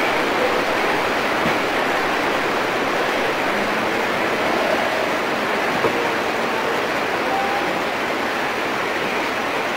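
Rain falling steadily, an even, unbroken hiss.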